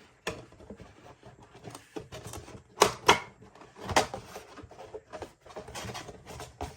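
Clicks and taps of hands handling a lightstick's cardboard box and packaging, with a few sharper clacks about three and four seconds in.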